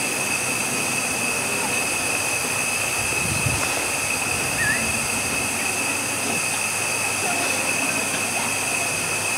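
Narrow-gauge steam locomotive standing and blowing off steam: a steady hiss with a constant high ringing tone through it. People talk faintly in the background.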